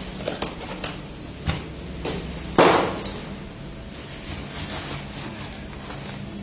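A padded carry bag packed with background stands and crossbar being handled and set down, making a series of separate knocks. The loudest comes about two and a half seconds in with a short rustle.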